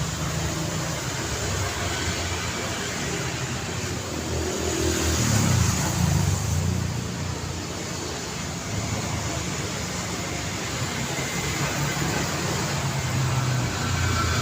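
City street traffic: cars passing on an urban road, a steady rumble of engines and tyres that swells as a vehicle goes by about five to six seconds in.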